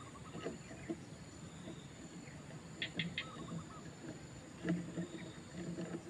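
Heron chicks calling at the nest: short, sharp ticking calls and brief chirps, with a quick run of three about three seconds in and a louder call near the end, as an adult lands on the nest.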